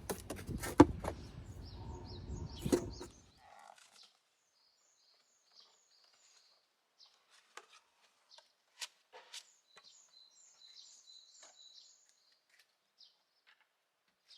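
A few knocks over a low rumble that cuts off about three seconds in, then small birds chirping in short, high, repeated notes, with a few faint clicks.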